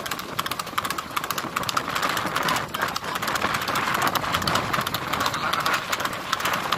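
Rapid hoofbeats of a horse pulling a racing cart at speed on a paved road, over the steady rolling and rattling noise of the cart wheels.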